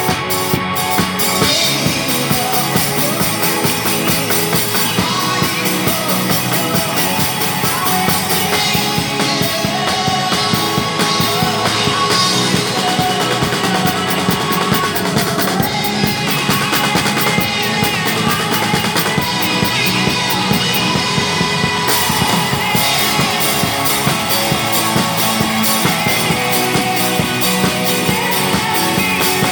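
A drum kit played hard with a steady driving beat, over rock music with a singing voice.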